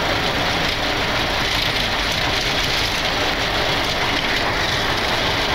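Boeing 737 on its landing rollout, heard inside the cockpit: a steady rush and rumble from the engines in reverse thrust and the aircraft rolling and braking on the runway.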